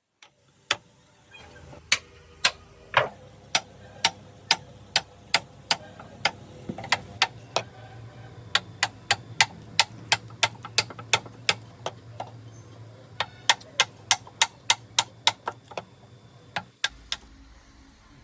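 A long run of sharp knocks, roughly two to three a second and fairly regular, with a low steady hum underneath in the middle stretch.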